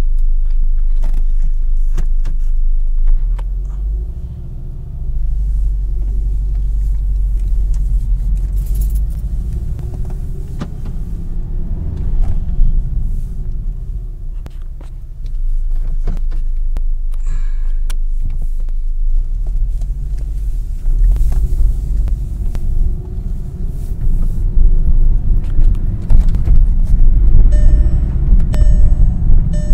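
Car engine and drivetrain rumbling under way, heard from inside the cabin; the engine note drops briefly twice, as if for gear changes. Near the end a repeating pitched beeping joins it.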